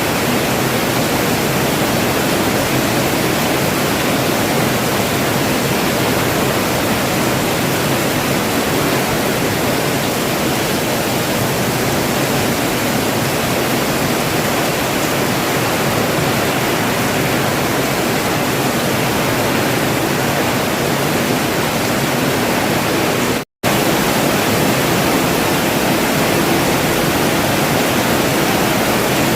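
Steady rain falling, an even hiss with no single drops standing out. The sound cuts out completely for a split moment about three-quarters of the way through, then resumes unchanged.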